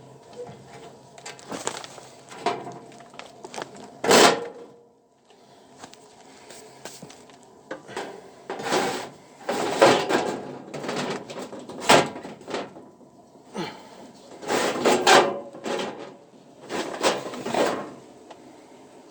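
A sheet-metal furnace access cover being worked loose and handled: a series of irregular knocks, scrapes and metallic clatters.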